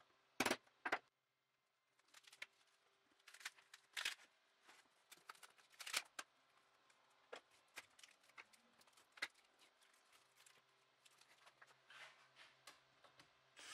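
A steel hammer striking a center punch twice, about half a second apart, sharp metallic taps marking screw-hole positions on a plywood template. After that, only faint scattered clicks and rustles of tools and the template being handled.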